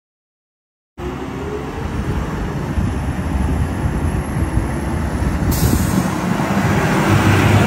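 Mack Granite garbage truck with a McNeilus rear-loader body driving up, its engine running and growing louder as it approaches; the sound starts about a second in, and a high hiss joins about five and a half seconds in.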